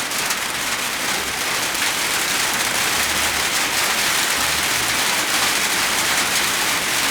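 Steady rain falling, a dense, even hiss with no let-up.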